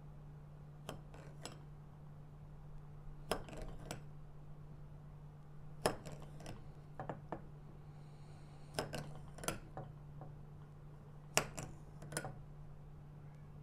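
A kitchen knife slicing an avocado half on a ceramic plate, the blade clicking against the plate in small clusters every two to three seconds as each slice is cut through.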